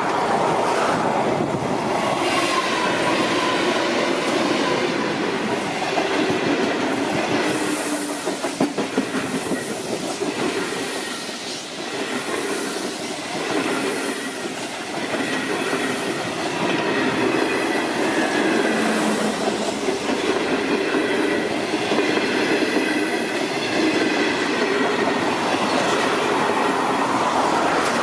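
Indian Pacific passenger train passing close by. Its diesel locomotive goes by near the start, then a long rake of stainless-steel carriages rolls past with steady wheel clatter and a thin ringing wheel squeal.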